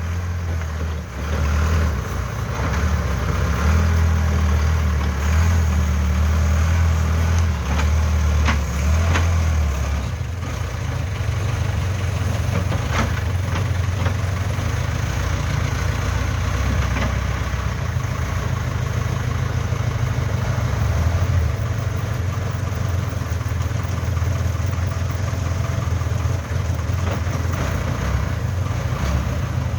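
Diesel engine of a Case 580K backhoe loader running with a steady low rumble, its speed shifting a few times in the first ten seconds and then holding steady, as it works to tow a stuck oil-palm tractor. A few faint knocks come through.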